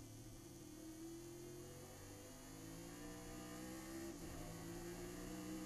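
Chevrolet Nova race car's engine at speed, heard as a low drone from the onboard camera inside the car. Its pitch rises slowly as the car accelerates, with a brief break in the note about four seconds in.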